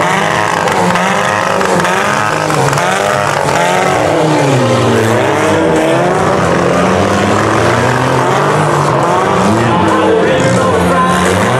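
Several demolition derby compact cars' engines revving at once, their pitch rising and falling over and over as the drivers rev and manoeuvre.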